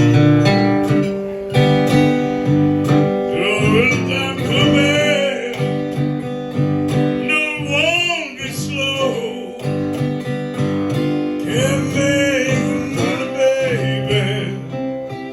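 Acoustic blues guitar plucked in an instrumental passage, with several bending, wavering notes.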